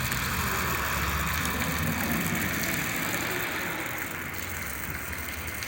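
Steady rain falling, with a low rumble underneath; it eases slightly about four seconds in.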